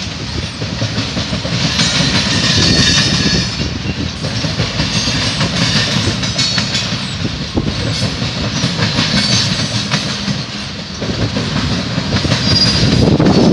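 Freight train of covered hopper cars rolling past at steady speed, the wheels clicking over rail joints with a continuous rumble and rattle, and brief high squeals now and then.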